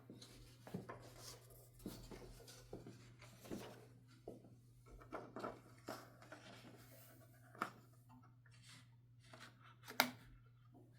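1969 Adler J5 manual typewriter being worked by hand: scattered, irregular clicks and clacks from its mechanism, the sharpest about ten seconds in.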